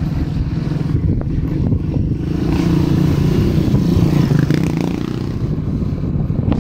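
Motor scooter engine running as the scooter rides along a dirt road, with road noise under it. It gets louder for a couple of seconds in the middle, then eases back.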